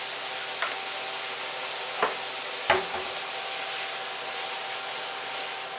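Diced bacon and chicken breast sizzling in a frying pan in their own bacon grease, with no added oil. Three sharp knocks of the spatula and seasoning container, the last the loudest, come about half a second, two seconds and nearly three seconds in.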